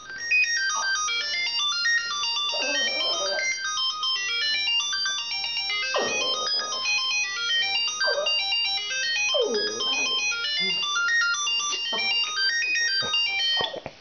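A mobile phone ringtone plays a fast, high electronic melody while a Lhasa apso howls along with it in several short yowls that fall in pitch. The ringtone cuts off just before the end.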